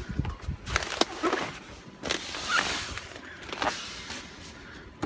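Handling sounds: a few sharp clicks and knocks and a short rustling swish about two seconds in, as a small metal clamp is picked up and handled.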